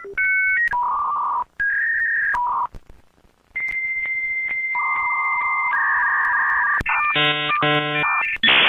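Dial-up modem connecting: a quick run of beeping tones, a long steady high tone with short regular breaks, then harsh buzzing handshake tones, and a loud hiss setting in near the end.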